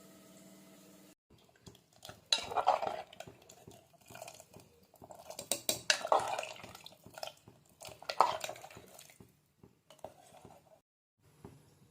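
A metal spoon stirring and scraping in a cooking pot, clinking against its sides in three bouts of clatter. A faint steady hum cuts off about a second in.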